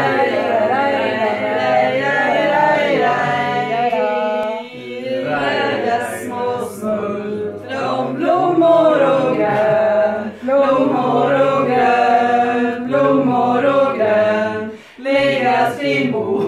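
A small group of men and women singing a birthday song together without accompaniment, in phrases with short breaks between them.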